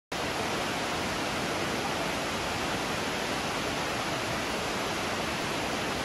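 Waterfall of spring water gushing out of a rock face into a river, a steady, even rush of falling water.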